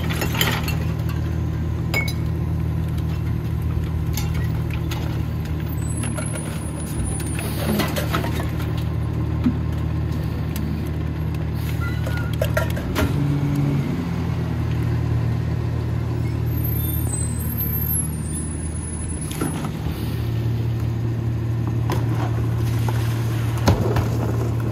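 Rear-loader garbage truck's diesel engine idling steadily, with scattered knocks and rattles as trash and cans go into the rear hopper. About twenty seconds in, the engine note steps up and holds.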